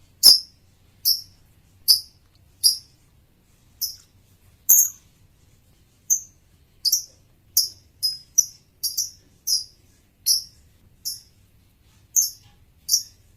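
Male lovebird chirping: short, sharp, high-pitched chirps repeated at an uneven pace of one to two a second, some in quick pairs.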